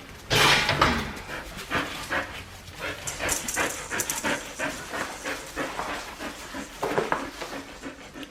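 Four-week-old Australian Shepherd puppies playing, panting and scuffling in a run of short irregular sounds, loudest about half a second in.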